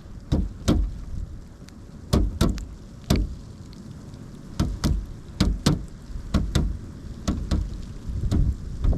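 Pileated woodpecker pecking, about fifteen sharp knocks at uneven intervals, often in quick pairs, over a steady low wind rumble.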